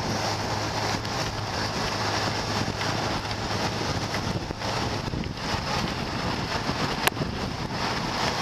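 Wind buffeting the microphone of a moving motorbike, over the steady hum of its engine, with one sharp click about seven seconds in.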